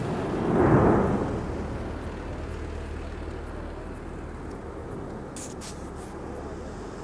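Lava fountain jetting from a volcano's main vent: a steady low rumble that swells to a louder burst about a second in.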